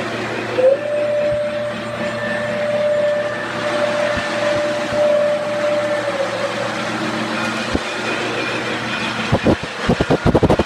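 Electronic sound effects from a model train running on its track: a low engine rumble with one long, steady tone held for about six seconds, then a quick run of sharp clacks near the end.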